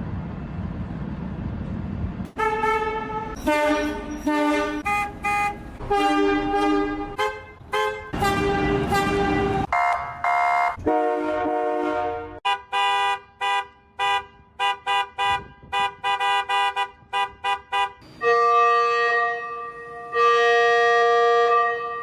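Bus and train horns honking: a low engine and traffic rumble for the first two seconds, then a string of horn blasts, often several pitches sounding together. Through the middle they come as rapid short toots, about three a second, and near the end as long held blasts.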